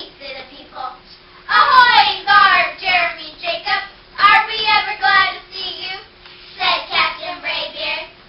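Children's voices reciting verse together in unison, choral-speaking style, in three short rhythmic phrases with brief pauses between, groups of the choir taking turns.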